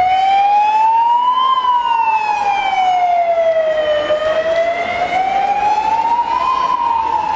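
A siren wailing, its pitch gliding slowly up and down: it rises for about a second and a half, falls for the next two and a half, rises again, and turns downward near the end.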